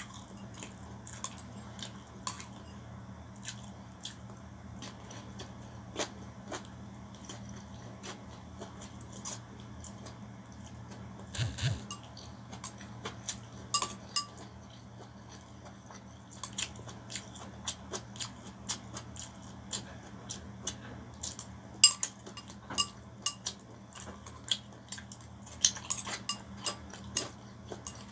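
Eating noises: chopsticks clicking and scraping against a ceramic bowl while rice noodles are chewed. There are short sharp clicks throughout, coming thicker in the second half, over a steady low hum.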